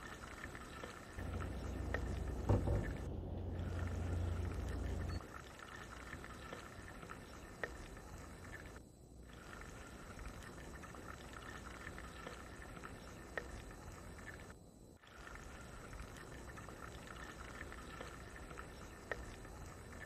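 Chicken pieces frying in hot oil in a steel pot: a steady sizzle with small scattered pops. About a second in, a louder low rumble lasts some four seconds, with a sharp knock in its middle.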